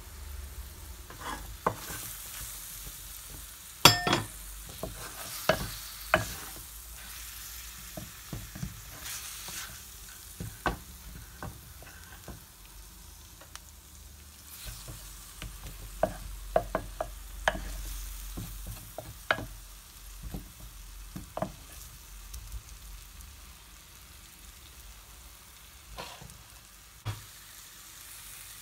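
Chicken and onions frying in a tagine base: a steady sizzle, broken by frequent short knocks and scrapes of spoons against the pan as the chicken is turned and spices are added, the sharpest about four seconds in.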